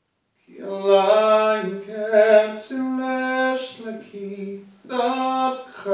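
A man's unaccompanied voice singing long, held notes on steady pitches, starting about half a second in, pausing briefly past the four-second mark and then resuming.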